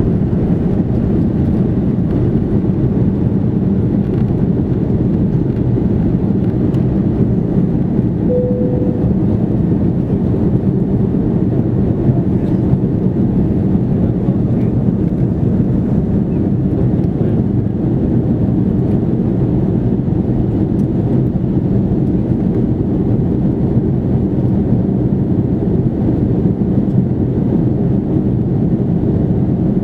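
Steady low rumble inside the cabin of an Airbus A330-300, with a brief tone about eight seconds in.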